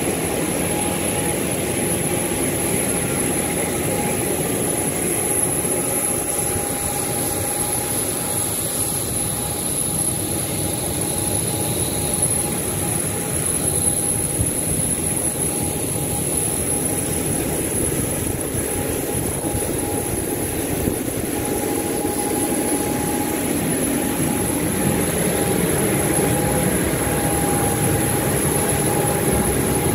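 Steady jet-turbine whine and rush of a parked jet airliner on the apron: two constant high tones held over a wide, even rumble, getting a little louder in the last third.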